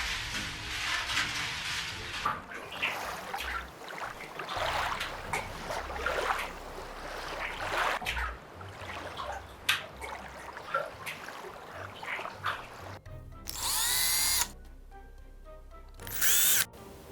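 Scraping and rustling, then two short bursts of a small electric motor whirring, each rising in pitch as it spins up.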